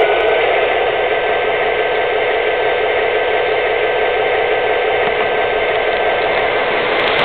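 Toy train's small electric motor and wheels running steadily on the track, a continuous even noise with a faint steady tone in it, heard close up from a camera riding on the train.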